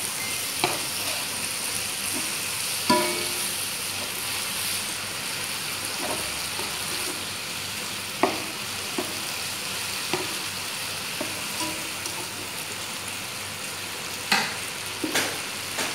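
Chicken strips sizzling in a nonstick frying pan with soy sauce, while a slotted spatula stirs them, scraping and knocking against the pan. The loudest knock comes about three seconds in, and a few quicker clacks come near the end.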